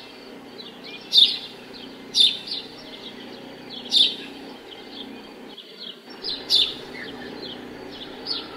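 Small birds chirping: bursts of short, high chirps every second or two over a steady low hum.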